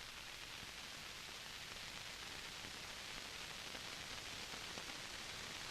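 A steady, faint hiss of background noise with no other distinct sound.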